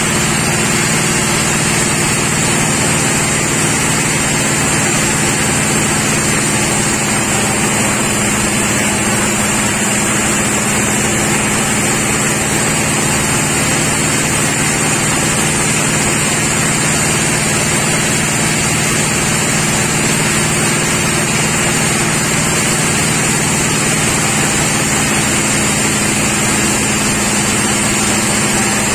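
Sawmill machinery running steadily: an even low hum with a high whine above it, holding the same pitch and level.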